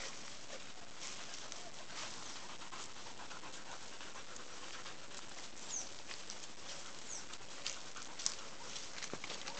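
Boxer dog panting as it sniffs around, with faint small crackles over a steady hiss.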